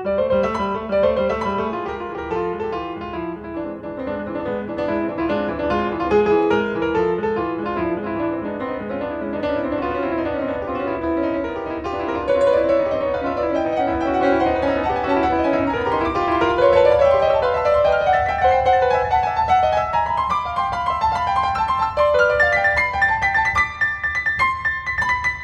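Piano playing fast, dense runs of notes in the middle and low register. About two-thirds of the way through the low notes drop out and the line climbs step by step into the high register, ending with high notes.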